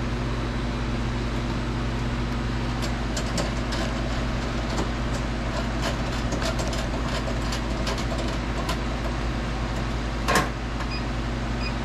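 Steady electrical hum of a gourd-engraving machine standing ready, with light clicks of the cuia being handled and set in place and one sharper knock near the end.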